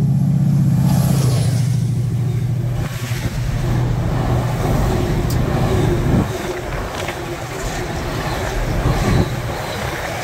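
Diesel train running past with its engine droning, the drone dropping away about six seconds in and leaving a steady rumble.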